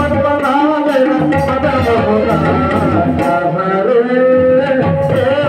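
A male voice sings a Ramayana bhajan through a microphone, with hand-drum accompaniment in a steady rhythm.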